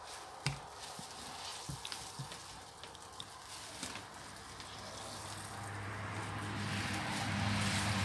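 Grapes being trodden underfoot in a tub, a wet squelching crackle with a few sharp knocks. From about halfway a low steady hum comes up and grows louder.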